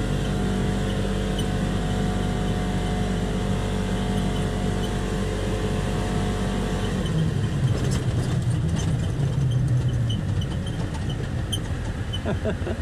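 Polaris Ranger XP 1000 UTV heard from inside the cab: its twin-cylinder engine pulls at a steady pitch under throttle while the vehicle speeds up through its belt-drive CVT. About seven seconds in the engine note drops off and the UTV brakes hard to a stop on grass, with scattered clicks and rustling from the tyres and underbody.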